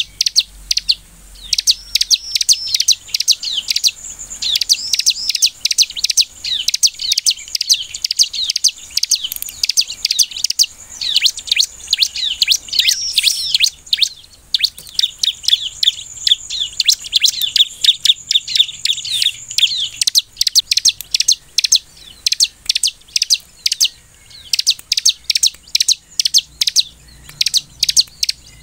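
Bar-winged prinia (ciblek) singing: a fast, nearly continuous stream of sharp, high chirps, broken by a few brief pauses.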